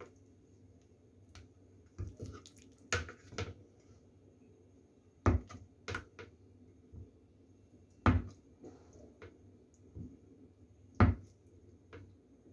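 Chinese cleaver slicing down through a soft block of tofu and knocking on a wooden cutting board: about seven sharp knocks, unevenly spaced, the loudest about five, eight and eleven seconds in, over a low steady hum.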